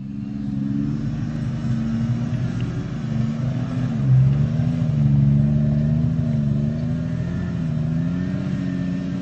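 Jeep Wrangler engine running at low revs as it crawls up a rocky trail, its pitch dipping and rising with the throttle and loudest about four seconds in.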